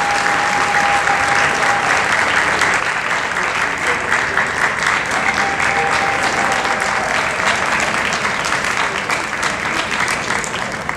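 A large indoor crowd applauding steadily with dense clapping, which eases off right at the end.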